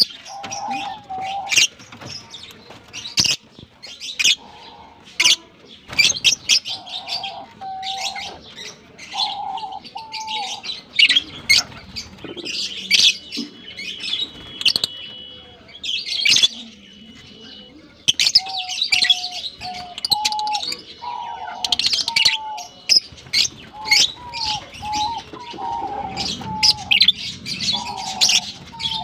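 A colony of lovebirds chattering: rapid, shrill chirps and squeaks overlapping without a break, with short, lower whistled notes repeating among them.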